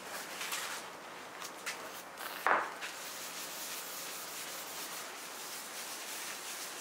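A plastic-gloved hand rubbing clear paste wax into a wood-veneer board with a steady brushing rub. A few short rustles come in the first seconds, the loudest about two and a half seconds in.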